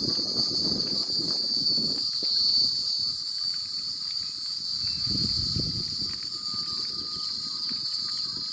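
Steady high-pitched chorus of insects at dusk, with patches of low rumbling noise near the start and again around five seconds in.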